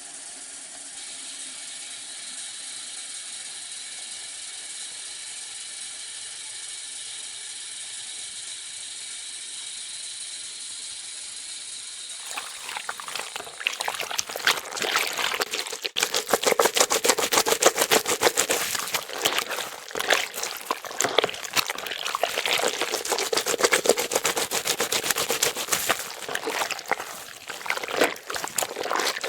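Bathroom sink faucet running into the basin: a gentle, steady stream for about the first twelve seconds, then the water turns louder and spattery, splashing irregularly against the basin.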